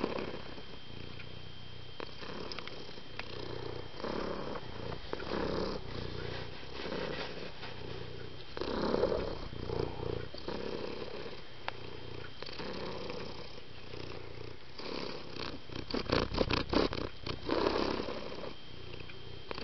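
Domestic cat purring, the purr swelling and fading about once a second with each breath. A quick run of sharp crackling clicks comes about three-quarters of the way through and is the loudest sound.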